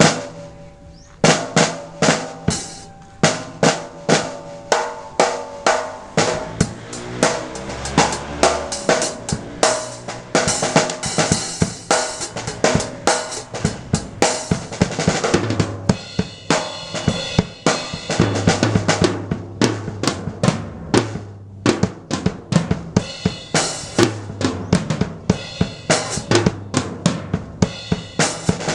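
Drum kit being played in a steady beat, bass drum and snare hits about two a second, starting about a second in.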